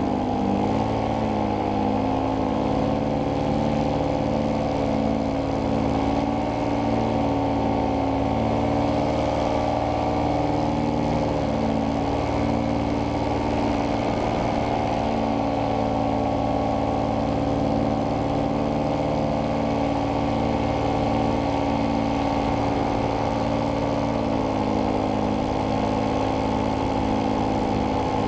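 Paramotor engine and propeller running steadily at cruising throttle in low flight. The engine's pitch eases down slightly near the end.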